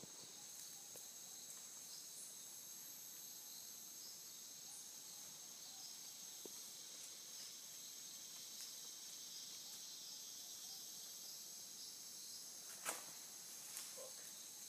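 Faint, steady high-pitched chorus of tropical insects with a soft regular pulsing; a single sharp knock near the end.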